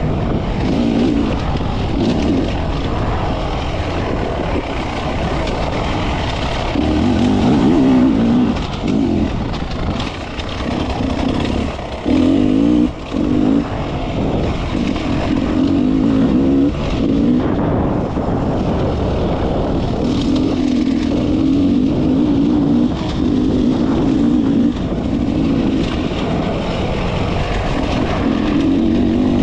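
Beta enduro motorcycle's engine being ridden hard off-road, its note rising and falling over and over as the throttle is opened and closed. It drops off briefly a few times around ten to thirteen seconds in.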